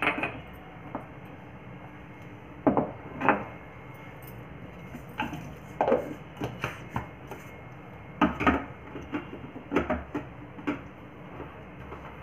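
A series of short knocks and clinks from kitchen handling: a ceramic jar's lid set back on, a plastic lid pressed onto a steel mixer-grinder jar, and the jar set onto the mixer base.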